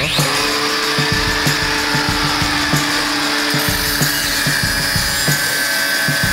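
Angle grinder spinning up with a rising whine, then running at a steady high pitch as its cutting disc works through a thin metal strip, throwing sparks.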